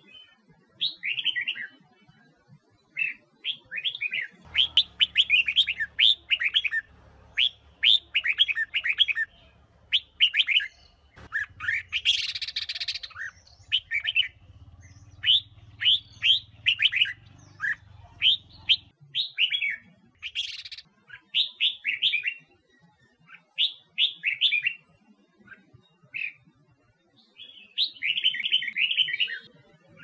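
Red-whiskered bulbul singing in short, quick, repeated chirping phrases, with a brief rush of noise about twelve seconds in.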